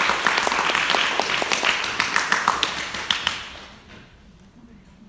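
Audience applauding, the claps thinning and dying away about three and a half seconds in.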